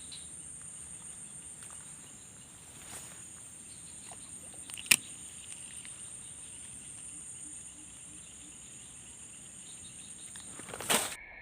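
Insects trilling steadily at a high pitch, with one sharp click about five seconds in and a brief louder rustle near the end.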